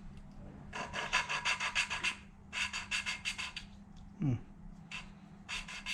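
A valve being lapped into its seat in a VW Polo BAH cylinder head with coarse grinding paste, turned rapidly back and forth, giving bursts of quick gritty rasping strokes. About four seconds in there is a short falling grunt from the person doing the lapping.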